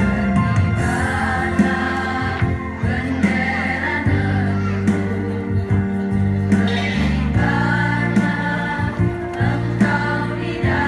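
Women's choir singing a patriotic song over an instrumental backing with held bass notes.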